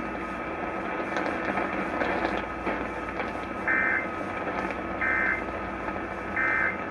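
Weather radio receiver hiss, then three short bursts of EAS/SAME digital data tones about 1.3 seconds apart: the end-of-message code that closes a NOAA Weather Radio warning broadcast.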